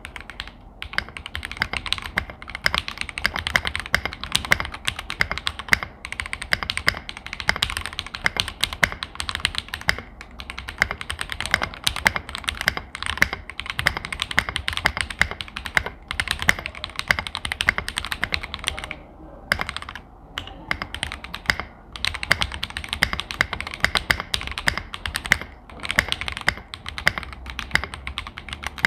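Typing test on an Akko ACR Pro 75 mechanical keyboard fitted with yellow linear switches and clear plastic keycaps: fast, continuous keystrokes with a few short pauses. The sound is a light, somewhat high-pitched "tak, tak" clack rather than a deep thock.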